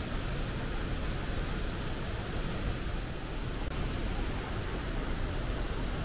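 Steady rushing of water released from a dam outlet into the pool below: an even, unbroken noise with a deep rumble underneath.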